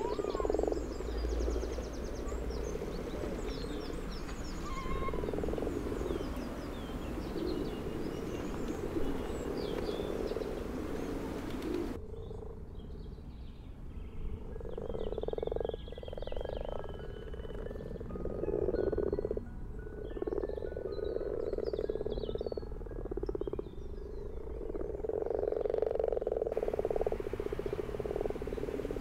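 Frogs croaking in a chorus, with repeated pulsing croaks and songbirds chirping and trilling over them. The background hiss drops away abruptly about twelve seconds in and comes back shortly before the end.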